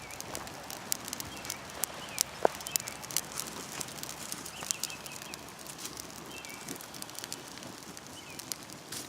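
Wood fire crackling with irregular sharp pops, while birds chirp faintly and briefly a few times.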